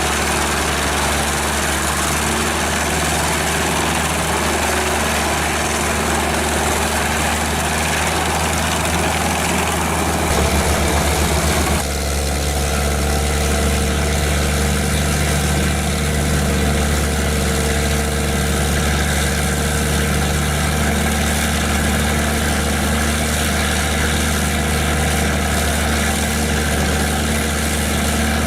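Large forestry wood chipper running at full power: a steady heavy engine drone under a dense grinding, shredding noise. About twelve seconds in, the grinding noise drops away sharply while the engine drone carries on.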